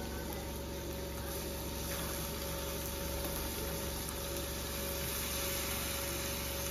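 Steady motor hum holding one pitch, over a faint hiss of vegetables frying in the pan.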